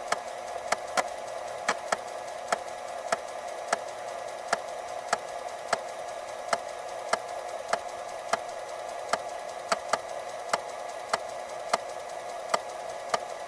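Floppy disk drive running: a steady motor whir, with sharp clicks from the read/write head stepping between tracks about twice a second, at slightly uneven intervals.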